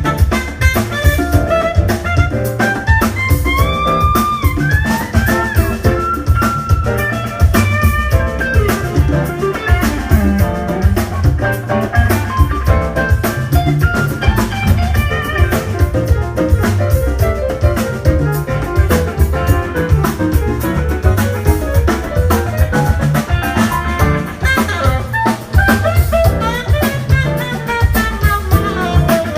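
A live jazz-funk band playing. A drum kit and bass hold a steady groove under a gliding melodic lead line.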